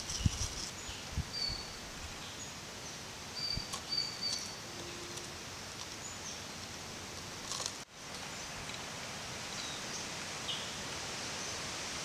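Outdoor bush ambience: a steady hiss of background noise with short, high bird chirps in the first half and a few soft low knocks near the start.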